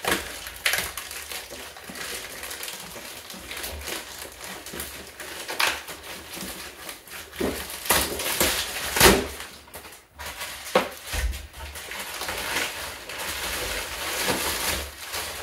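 Plastic shrink wrap crinkling and tearing as it is pulled off a cardboard box, with a few louder crackles about eight and nine seconds in.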